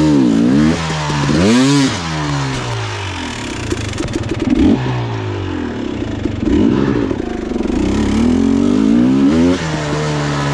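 Dirt bike engine revving up and down as the throttle is worked, with quick rises and falls in pitch, a longer climb late on and a sudden drop off the throttle near the end.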